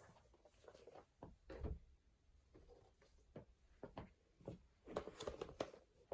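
Faint handling sounds of a photocard binder: scattered soft knocks and rustles as it is closed and moved, bunched together near the end.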